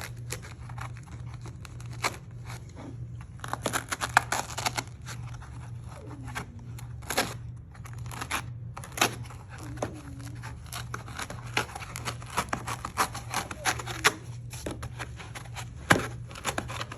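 Kaizen foam being cut and torn out in small pieces: irregular scraping, tearing and crackling, with a steady low hum underneath.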